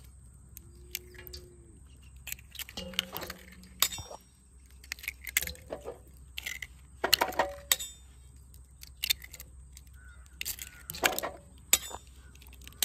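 Hen's eggs being cracked one after another on the rim of a large stainless steel bowl: sharp cracks and metallic clinks at irregular intervals, roughly one a second.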